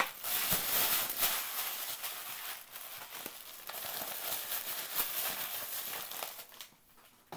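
Thin tissue wrapping paper being crumpled and handled: a dense crinkling rustle that stops about six and a half seconds in. There is a sharp tap at the very start.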